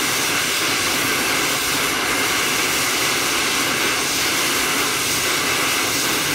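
Hand-held gas torch burning with a steady, even hiss, its flame heating a bolt to cook off old Loctite threadlocker.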